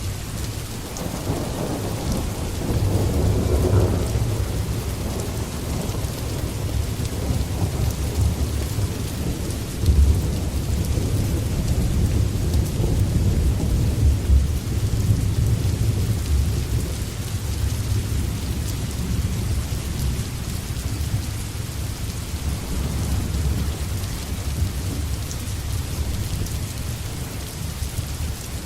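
Steady rain with low rolling thunder rumbling underneath, swelling into a louder roll a few seconds in.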